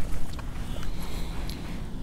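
Low wind rumble on the microphone, with a few short, faint clicks and ticks scattered through it.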